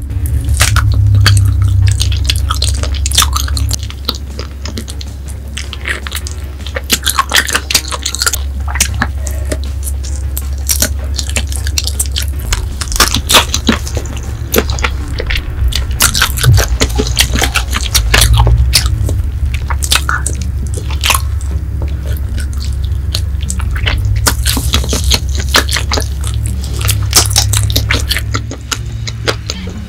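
Close-up eating sounds of a person chewing and sucking on spicy chicken feet: wet chewing, smacking and many irregular sharp mouth clicks.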